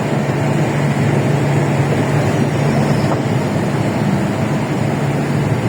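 Steady engine and road noise from a vehicle driving along a highway, a low even hum with no changes.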